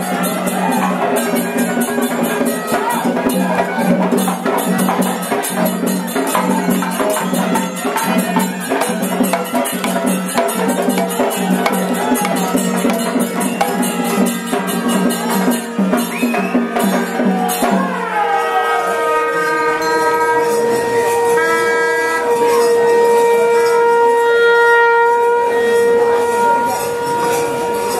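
Kerala temple percussion ensemble: chenda drums and hand cymbals playing a fast, dense rhythm. About 18 seconds in the drumming gives way to horns, which slide down in pitch and then hold long steady notes.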